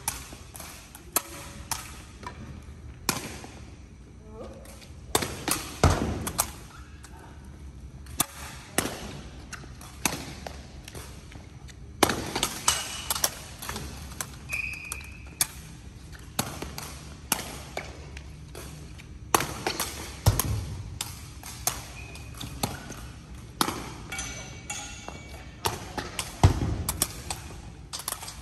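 Sepak takraw balls being kicked and hitting the floor, an irregular run of sharp thuds, several a second at times, echoing in a large sports hall.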